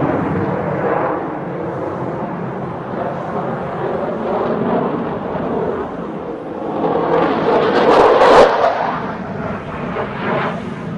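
Jet aircraft engine noise, a continuous rumbling roar that swells to its loudest about eight seconds in, with some crackle at the peak, then eases off.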